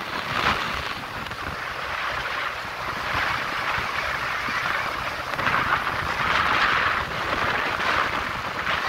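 Wind rushing over the microphone on a moving motorboat, mixed with water noise from the hull. It is an even rush with no clear engine note, swelling louder a few times, most of all about six to seven seconds in.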